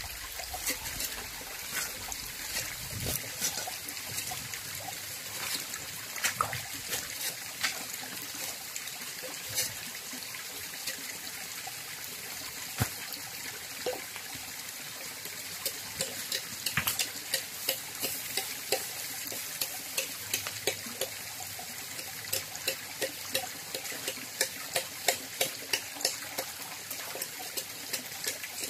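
Small shallow stream trickling over rocks, with many short sharp splashes and clicks, more frequent in the second half.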